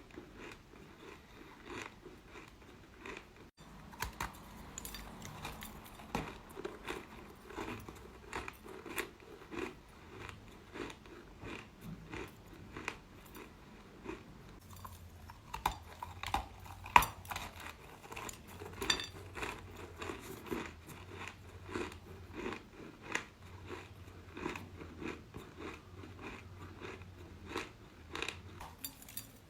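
A person biting and chewing chalk close to the microphone: a run of crisp, irregular crunches, with one sharp, loud bite a little past halfway.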